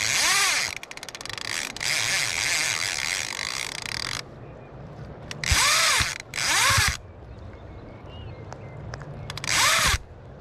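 Fly reel drag buzzing in bursts as a hooked Atlantic salmon takes line: about five runs, the longest lasting over two seconds, each rising and then falling in pitch.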